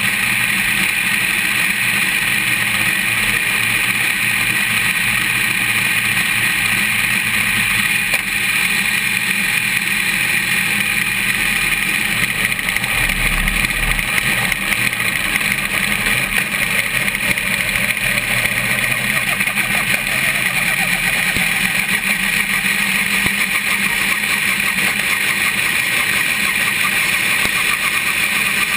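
Race car running steadily at speed, heard from beside its front wheel and suspension.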